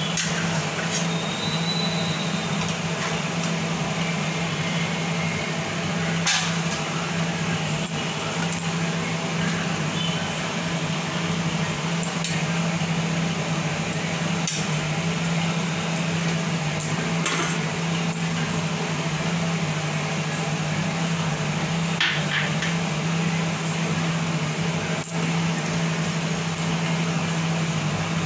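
A steady low electrical hum over even room hiss, with a few light clinks of a serving spoon and steel bowl against a pot now and then.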